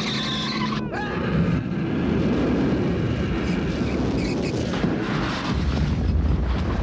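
Car crash and explosion from a film soundtrack. A siren wail cuts off about a second in, and a long, loud rumbling blast follows.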